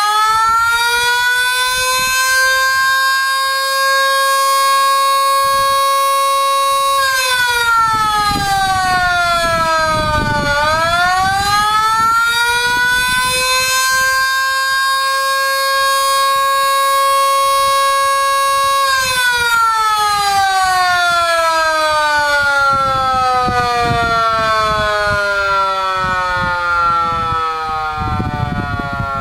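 Outdoor tornado warning siren sounding. Its tone climbs to a steady high pitch and holds, sags partway about seven seconds in, winds back up and holds again, then winds down slowly over the last ten seconds.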